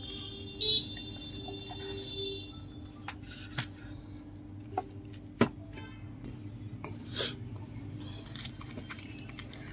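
Clicks, taps and rustling as a smartphone is worked open with thin plastic opening cards beside a bubble-wrap pouch, the sharpest click about five and a half seconds in. A high steady tone, like a distant horn, sounds over the first two seconds.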